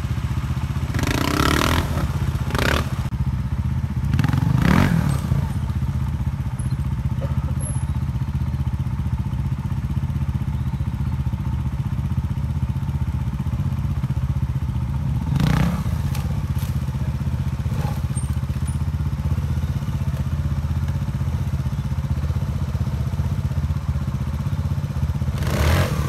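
Trials motorcycle engine running at low revs while climbing over rocks. Around it come a few short, sharp knocks and clatters of the bike striking the rocks, the loudest a few seconds in, around the middle, and near the end.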